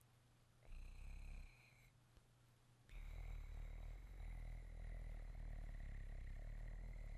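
A man's low, rattling rumble in the throat: a short one about a second in, then a longer one from about three seconds in that keeps going.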